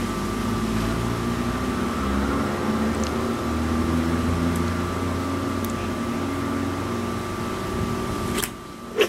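Steady mechanical hum with several held tones, like a motor-driven machine running. It cuts off abruptly about eight and a half seconds in, followed by a single sharp click.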